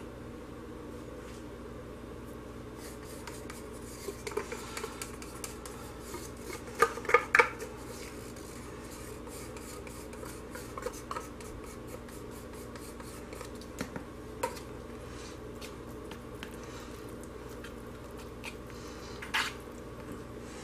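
Utensils scraping and lightly clinking against a crock pot while colorant is stirred into thick hot process soap batter. The knocks come sparsely, with a short louder cluster about seven seconds in, over a steady low hum.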